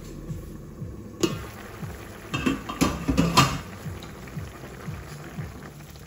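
Stainless steel pan lid lifted off with a sharp clink about a second in, then a burst of metallic clattering between about two and three and a half seconds, over a pan of vegetable curry simmering at a boil. Background music plays throughout.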